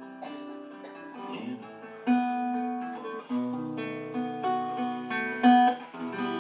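Acoustic guitar playing the closing bars of a song after the last sung line: picked notes ringing, with two louder strummed chords about two seconds in and near the end.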